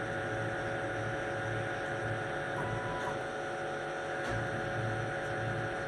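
TUS-25 lathe under CNC control running during thread cutting: a steady machine hum with several constant tones and a low pulsing about twice a second. A short high tone comes about two and a half seconds in, and a single click a little after four seconds.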